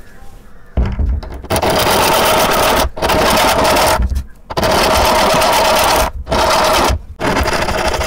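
Hand file rasping back and forth across the sharp steel screw tip that sticks out of a metal door stopper, filing it down flush. The scraping starts about a second in and comes in long runs of a second or two, with short pauses between.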